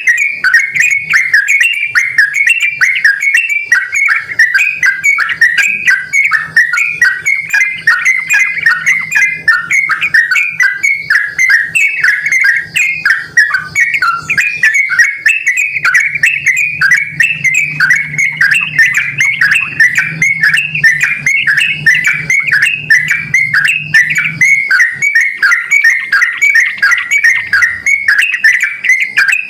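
Yellow-vented bulbul (trucukan) calling non-stop: a rapid, unbroken run of short chattering notes.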